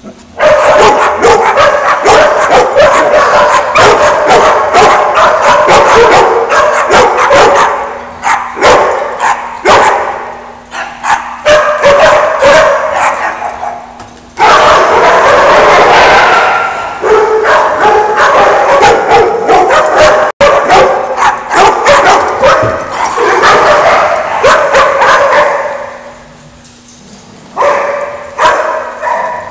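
A pack of dogs of mixed sizes barking at once, a loud, dense chorus of overlapping barks that eases off briefly three times before surging back.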